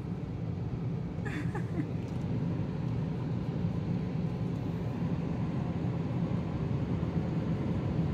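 Automatic car wash machine running, heard from inside the car's cabin as a steady low rumble that slowly grows louder.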